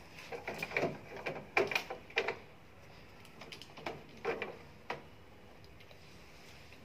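Metal lock cylinder being worked back into the mortise lock case of a steel security door: a quick run of sharp clicks and knocks in the first two seconds, then a few more about four to five seconds in.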